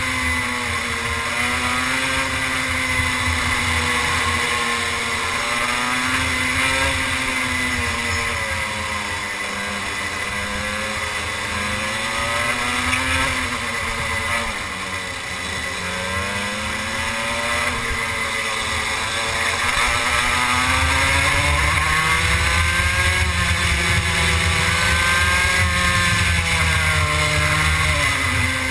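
Two-stroke racing kart engine at full race pace, recorded onboard: its pitch falls as the kart slows for corners and climbs again on the exits, lowest about halfway through, then held high along a straight before dropping near the end.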